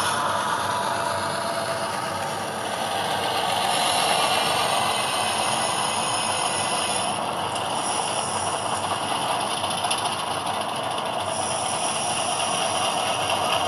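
An HO-scale diesel switcher's ESU LokSound sound decoder runs steady diesel engine sound through its small onboard speaker, with the rattle of model freight car wheels rolling on the track.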